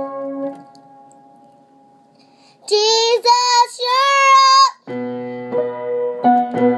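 Electric keyboard chords fade out, then after a short pause a young girl sings a gospel song phrase in a high, wavering voice for about two seconds, and the keyboard chords come back in after her.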